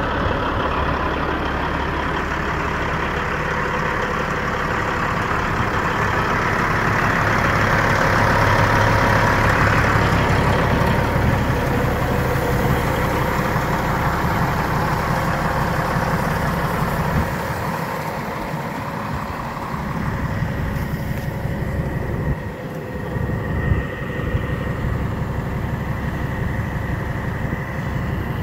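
Diesel engine of a 2000 Peterbilt 379 truck tractor idling steadily, swelling louder for a few seconds about a third of the way in.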